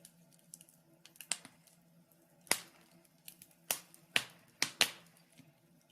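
A few irregular sharp clicks and knocks, about half a dozen spread across a few seconds, over a faint steady hum.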